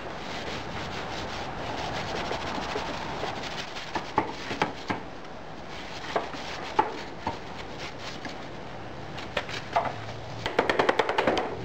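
Hand rubbing and scraping moulding sand off a freshly poured cast-iron grill casting, a steady gritty rustle broken by scattered clicks and knocks of sand lumps and metal, busiest near the end.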